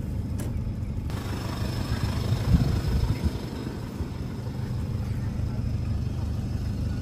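Car engine and road noise heard from inside the moving car's cabin: a steady low rumble, with a single thump about two and a half seconds in.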